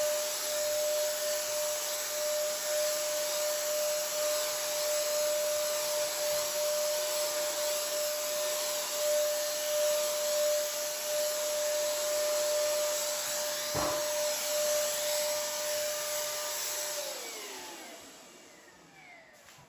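Cordless DEKO paint sprayer's turbine motor running with a steady whine and air hiss while spraying primer. A short knock comes near the middle. Near the end the sprayer is switched off and the motor winds down, its pitch falling.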